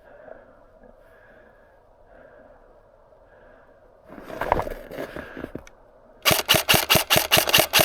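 Airsoft gun firing a rapid string of sharp, evenly spaced shots, about seven a second, starting about six seconds in. Before it comes a short burst of crunching, scuffing noise, like movement through snow.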